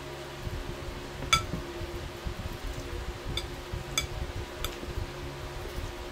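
Metal forks clinking against a ceramic plate while eating noodles: four sharp, ringing clinks, the first and loudest about a second in, over a steady low hum.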